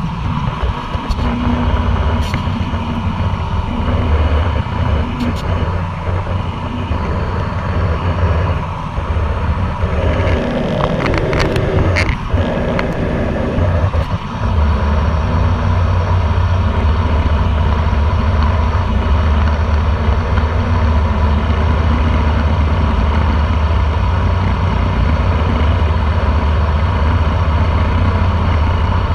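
A ferry underway: a steady low rumble of the ship's engines and rushing wake water, with wind buffeting the microphone.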